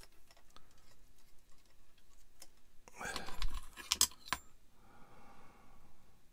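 Small plastic model kit parts and thin insulated wire being handled: light rustling and scattered clicks, with a busier spell and a couple of sharper plastic clicks about three to four seconds in.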